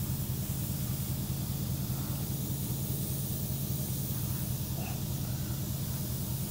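Steady hiss of air escaping from a punctured tyre as a plug is worked into the hole, over the low, steady hum of an engine idling.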